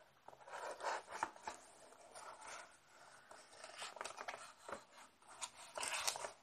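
Cardboard fan box being opened carefully by hand: irregular scraping and rubbing of the cardboard with small clicks and taps.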